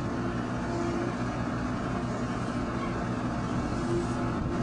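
A train running along, a steady low rumble with a faint hum.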